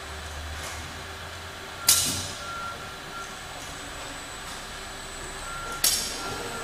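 Two sharp bursts of exhausting compressed air, about four seconds apart, each fading over half a second, from the pneumatic cylinders of a robotic bottle palletiser. A steady machinery hum runs underneath, with short high beep-like tones now and then.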